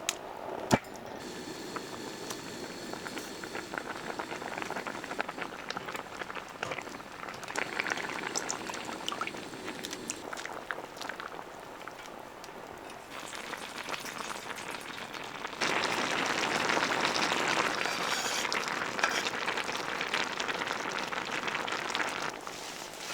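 A pot of gamjatang (Korean pork and potato stew) bubbling at a boil, with scattered small pops and clicks. The bubbling turns louder for about the last third, then drops back suddenly.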